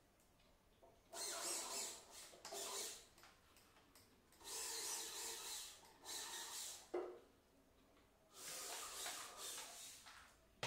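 Hand screwdriver driving a handle screw into a laminated plywood cabinet door: faint grinding and rubbing in about five short bursts of turning, with a sharp click about seven seconds in.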